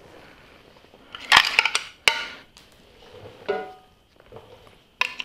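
A handful of sharp metallic clinks, two of them ringing briefly, as a bolt is dropped into a steel magnetic parts tray and tools are handled.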